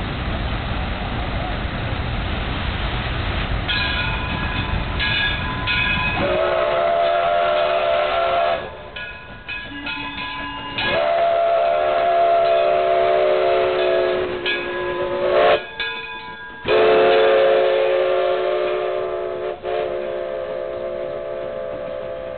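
Steam locomotive passing close by with a loud rush of running noise, then its steam whistle blowing long, steady, multi-tone blasts: one about six seconds in, a longer one from about eleven seconds, a short toot, and a last long blast that slowly fades.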